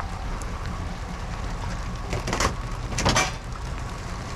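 Steady rain noise, with two short rustling, crunching noises of trash being handled, about two and three seconds in.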